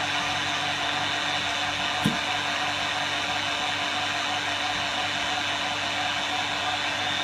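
Small electric pump motor running steadily with a constant hum, with one sharp click about two seconds in.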